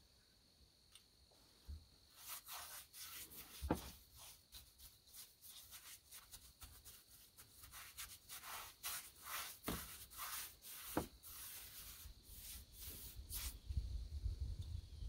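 A stain brush scrubbing across a bare log wall: a run of faint, quick brushing strokes with a few sharper knocks among them, and a low rumble near the end.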